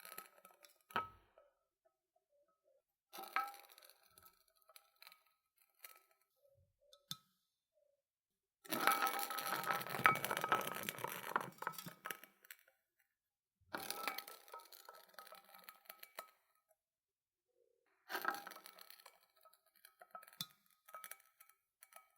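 A can rolling and rattling over a hard surface, with a steady ringing note running through each roll. It sets off in about four separate runs after a first one ends; the run near the middle lasts a few seconds and is the loudest.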